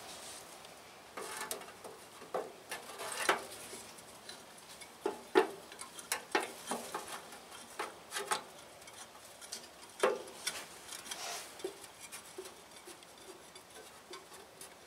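Light, irregular metal clicks and rattles of a round wire-mesh screen being handled and fitted against a small engine's flywheel shroud, with a few sharper taps.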